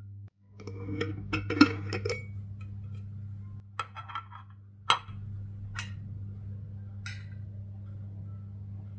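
Glass and kitchenware clinking: a quick cluster of sharp clinks and knocks, then four single clinks spaced a second or so apart, over a steady low hum.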